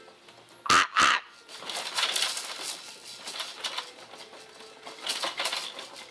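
Two quick fake coughs in close succession a little under a second in, followed by quieter irregular clicking and rustling.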